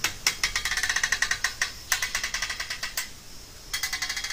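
An old door creaking on its hinges as it is slowly swung, a rapid ratcheting creak in two long stretches with a pause of about a second and a half between them.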